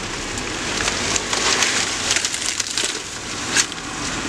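Dry brush, saw palmetto fronds and sticks crackling and snapping as a Jeep Wrangler crawls through them, with one sharp snap about three and a half seconds in.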